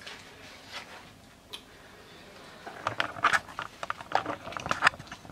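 Small handling and eating noises at a table: a few faint clicks, then from about halfway a quick run of crinkles, taps and clicks as paper food wrappers and things on the table are handled.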